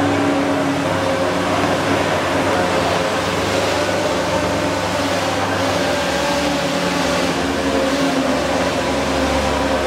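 Electric blowers on several homemade hovercraft running together: a steady whirring drone with a few hums of slightly different pitch.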